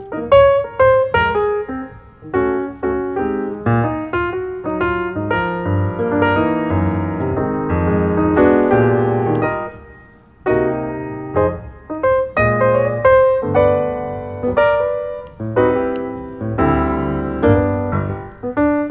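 Background piano music: a melody with chords over a moving bass line, pausing briefly a little past halfway.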